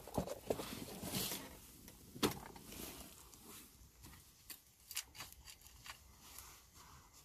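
Gusty wind with scattered small clicks, knocks and rustles, the sharpest knock about two seconds in.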